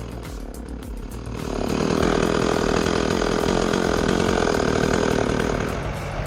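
A chain saw running and cutting, swelling loud about a second and a half in and easing off near the end, over a steady low engine rumble.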